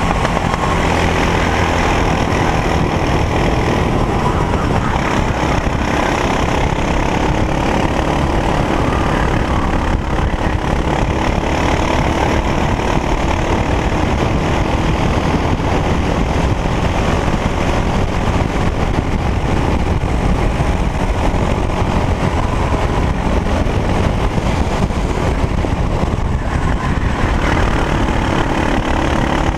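Racing kart engine running hard at race pace, heard from the kart itself, its pitch rising and falling slowly as the driver works through the corners and straights.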